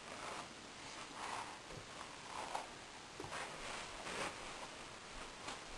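A brush drawn through a dog's fur: soft, quiet swishing strokes, about one a second.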